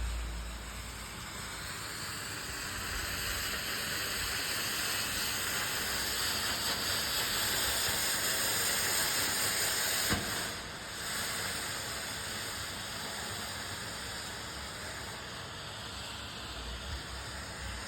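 Smoke bomb hissing steadily as it burns, swelling slightly and then easing after a single sharp click about ten seconds in.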